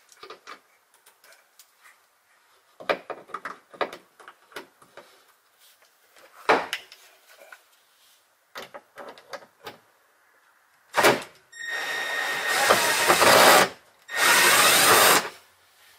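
Scattered clicks and knocks of tools and hardware being handled, then a power tool run in two bursts of about two seconds and about one second, working on a bolt in the seat mount.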